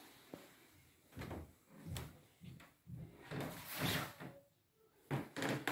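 A few faint, separate knocks and scrapes of doors or cupboard doors being handled, spread irregularly through a few seconds.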